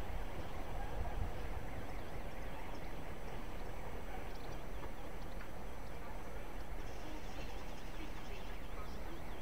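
Railway station ambience: a steady low rumble, with faint, repeated high chirps from about four seconds in.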